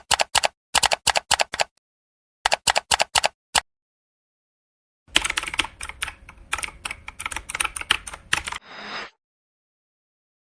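Rapid runs of typing clicks in three bursts, the third longer and denser, followed by a short hiss about nine seconds in.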